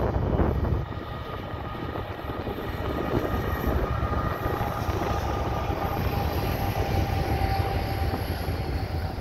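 Diesel-electric freight locomotives of a CN intermodal train, led by an EMD SD70I, running with a steady low rumble and a faint steady whine. Wind buffets the microphone for about the first second.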